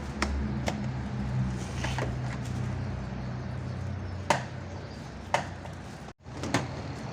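A few sharp knocks and clacks, like parts or tools being handled, over a steady low hum.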